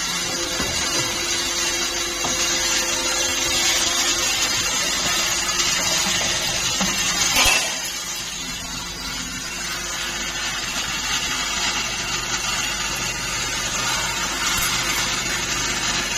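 CNC wire bending machine running: a steady mechanical hum and hiss, with one sharp loud clack about seven seconds in.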